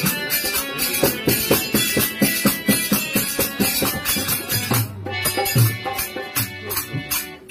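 Instrumental passage of Indian folk music: a harmonium holding chords under quick, even dholak drum strokes, with a high percussion ticking in time.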